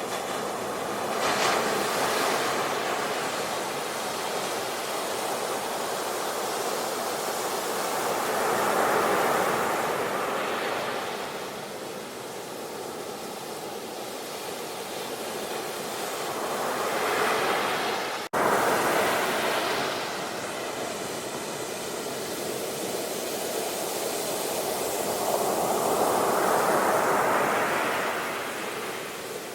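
Sea waves breaking and washing ashore in slow surges, each swelling and fading over several seconds, about four in all. There is a brief sudden dropout about two thirds of the way through, like an edit splice.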